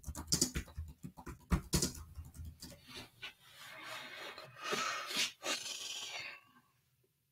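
Typing on a computer keyboard: a quick run of keystrokes for about three seconds, then a hissing noise with a few harder key strikes for about three more, stopping shortly before the end.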